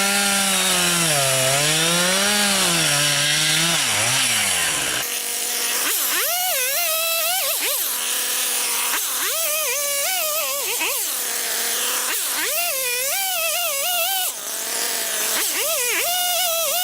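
Husqvarna 359 two-stroke chainsaw running and revving, its engine pitch rising and falling. About five seconds in the sound changes abruptly, and rising and falling pitched sounds repeat roughly every two seconds.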